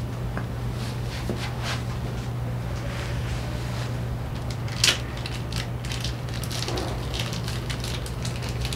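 Handling noise of small clutch parts and a plastic bag over a steady low hum: scattered light clicks, one sharp click about five seconds in, then crinkling near the end.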